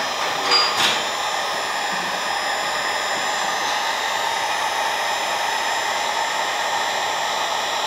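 Handheld electric heat gun blowing a steady rush of hot air, heating solder-seal heat-shrink splice connectors so the tubing shrinks and the solder melts into the wire joint.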